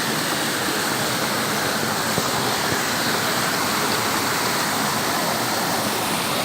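A small waterfall's water pouring, a steady, even rush that does not change.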